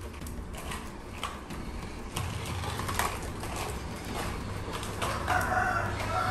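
Battery-powered remote-control toy car running, its small geared motor whirring with scattered clicks and knocks. A low hum joins about two seconds in, and a steady higher tone comes in about five seconds in.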